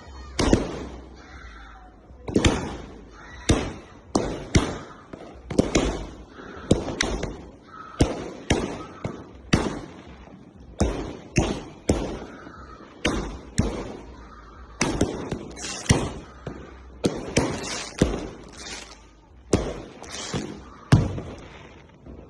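Consumer fireworks cake (Tiger Fireworks 'Business Class A') firing a steady run of shots, about one a second, each a sharp bang with a short echo after it.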